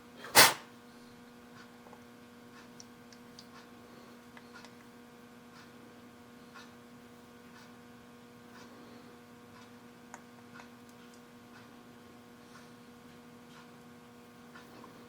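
A single sharp knock about half a second in, then a steady electrical mains hum with a few faint, light clicks.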